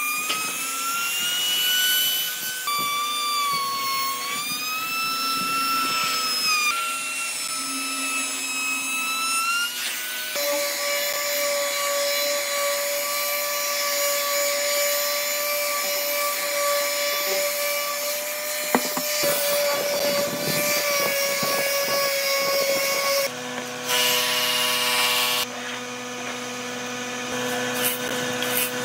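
A handheld trim router's motor whines, its pitch rising and sagging as it cuts along the edge of a wooden board. After about ten seconds it gives way to an electric palm sander running at a steady pitch on the wood, with a scratchy rasp from the sanding pad.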